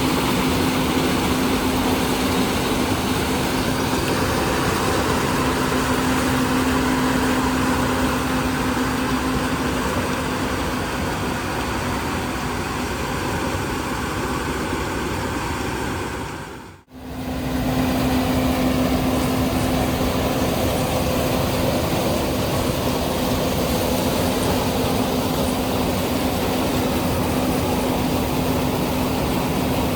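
Heavy diesel farm machinery running at steady revs during corn harvesting: a constant drone with a steady hum. It drops out for a moment a little past halfway and comes back unchanged.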